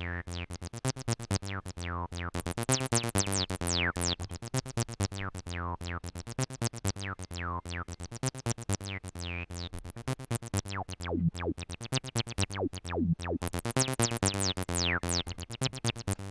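Sequenced acid bassline from a step-sequenced synth set up to sound like a TB-303: a fast run of short notes through a resonant filter, many notes with a sweep falling from high to low as the filter envelope closes.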